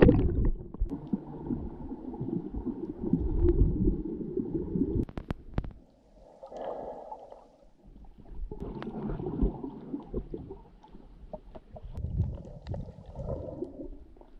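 Water rushing and gurgling around an underwater camera as a snorkeler swims, heard muffled and low, with scattered small clicks. It drops away for a couple of seconds near the middle.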